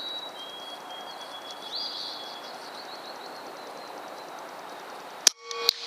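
A Benjamin Armada .22 PCP air rifle fired once near the end: a sharp crack, followed a moment later by a metallic clang as the pellet strikes a beer can downrange.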